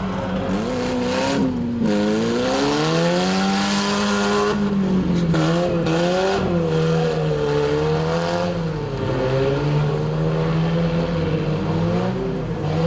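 Four-cylinder hatchback car engine revving hard, its pitch rising and falling several times as the car accelerates and backs off, over a rushing background noise.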